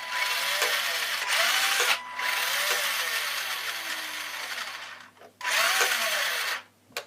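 Tamiya radio-controlled car's electric drive motor and gears whining in three bursts of throttle, the pitch rising and falling with each burst. The throttle now works because the speed controller is plugged into the other receiver channel.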